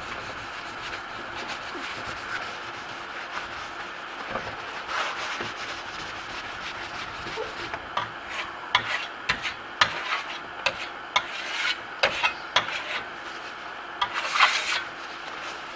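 A cloth rag rubbing over waxed Venetian plaster, then a steel plaster trowel scraping across the waxed surface in many quick, short strokes from about halfway in, the strokes sharpest near the end.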